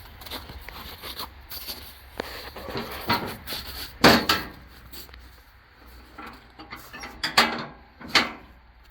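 Irregular knocks and clunks of objects being handled, with the loudest about four seconds in and two more near the end.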